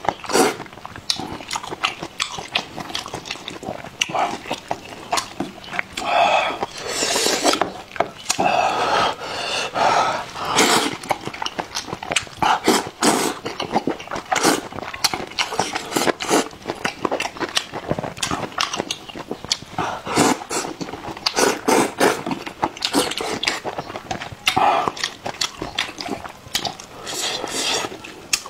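Close-up eating sounds: noodles slurped from a bowl of hot-pot broth, with wet chewing and many short lip-smacking clicks. Several longer slurps stand out among the chewing.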